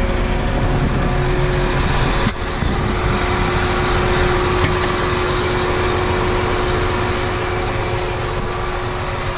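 Farm vehicle engine running steadily while driving off, heard from on board, with a steady whine over its noise.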